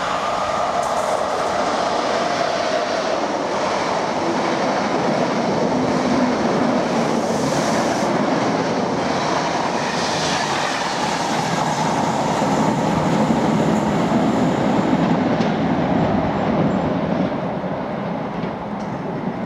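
Greater Anglia Class 90 electric locomotive with its coaches and driving van trailer running non-stop through the station: a steady rush and rumble of wheels on rail, building up to the middle and easing off near the end as the last vehicle passes.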